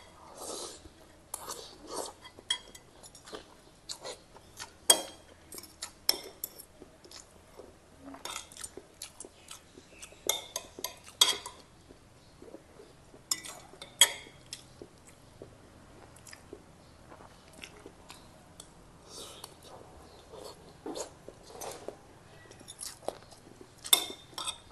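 Close-miked chewing of a mouthful of rice and fish, with sharp clinks of a metal fork and spoon against a ceramic soup bowl every second or two, the loudest clinks about 5, 14 and 24 seconds in.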